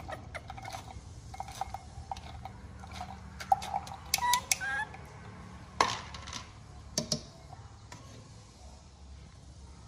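Metal spoon scraping and clinking against a metal mesh strainer as tomato smoothie is pressed through it into a glass, with scattered sharp clinks, the loudest a little past halfway.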